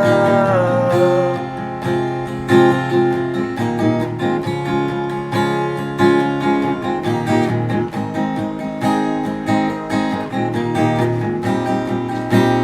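Acoustic guitar strumming chords in an instrumental passage between sung lines. A held sung note trails off and falls in pitch in the first second.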